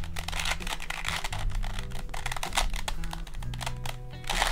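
Rapid, irregular plastic clicking and clacking of a Rubik's 4x4 cube's layers being turned by hand during a speed solve.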